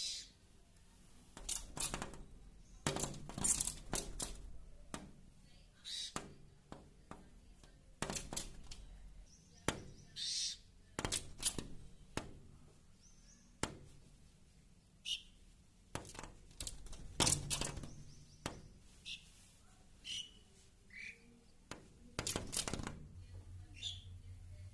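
Pied myna attacking its reflection in a window pane: irregular sharp taps and knocks against the glass, with short chirping calls between them.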